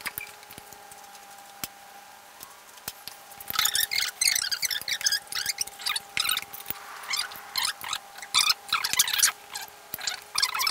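Film soundtrack played in fast-forward: sped-up dinner-table voices that come out as high, squeaky, rapid chatter from about three and a half seconds in, after a quieter stretch of scattered clicks over a steady hum.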